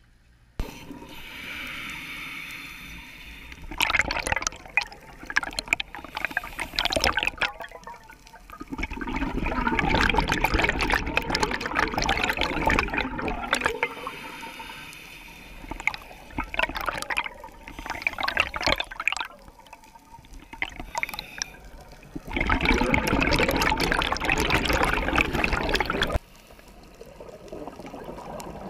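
Scuba regulator breathing picked up underwater by the camera: about four long bubbling gushes of exhaled bubbles, each a few seconds long, with quieter hissing stretches between them.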